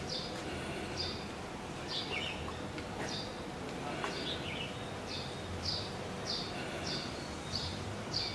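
A small bird calling over and over: short, high chirps that drop in pitch, about one to two a second, with a lower downward note twice. A steady low background hum runs beneath.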